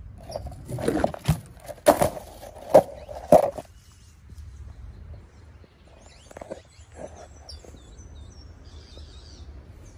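Footsteps along a garden path, several separate steps in the first few seconds, then small birds chirping from about six seconds in.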